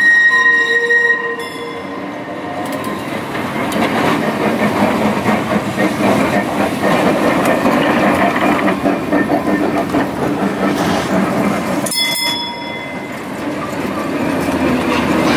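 Historic Cöpenick tramcar Tw 10 passing on depot tracks. Its steel wheels squeal with a steady high tone for about the first second, then rumble and clatter over the rails and points. A break about 12 s in is followed by the rumble rising again.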